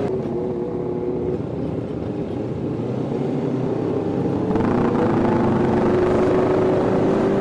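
Motorcycle engine running steadily at cruising speed, with a rush of wind and road noise. About four and a half seconds in it gets louder and the engine pitch lifts slightly.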